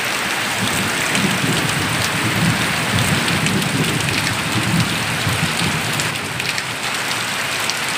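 Heavy rain falling steadily, with a low rumble underneath from about a second in until five and a half seconds in.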